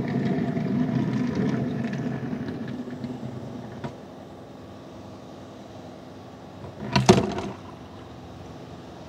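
A die-cast toy car's wheels roll across a smooth plastic surface, the sound fading out after about three seconds, with a small click near four seconds. About seven seconds in there is a short, loud splash as the toy car drops into a tray of water.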